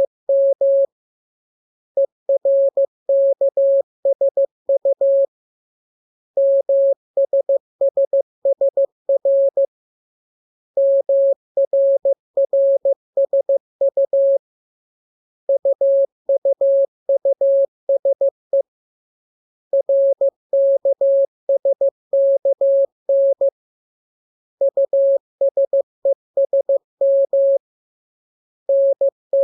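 Morse code practice tones: a single steady mid-pitched beep keyed in dots and dashes, sent in groups of characters of about three to four seconds each with a pause of about a second between groups.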